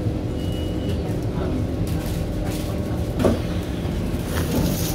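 C151 train car standing at the platform with its equipment humming steadily; a little over three seconds in a thump as the passenger doors open, followed near the end by a hiss.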